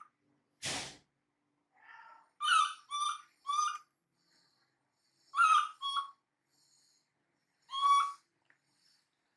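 Baby macaque giving short, high-pitched squeaky calls, about seven in all, some in quick runs of two or three. A brief burst of noise comes just before the first call.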